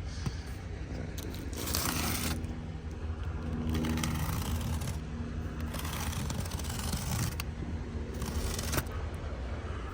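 A knife slitting packing tape and cardboard on a box, in several rasping strokes each lasting about a second, over a steady low hum.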